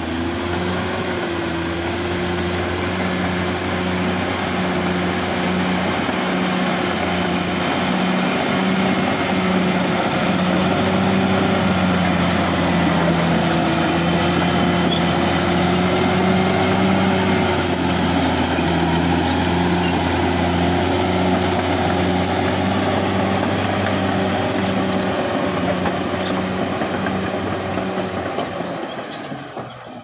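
Caterpillar D6R XL bulldozer's diesel engine running steadily under load while it pushes dirt, with scattered light clicks over it. The sound falls away just before the end.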